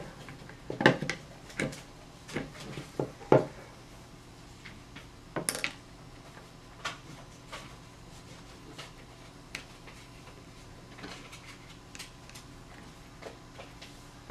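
Parts of a BT TM7 paintball marker clicking and knocking as they are handled and fitted into one half of the body shell: several sharp clacks in the first few seconds, one more about five seconds in, then only faint scattered ticks.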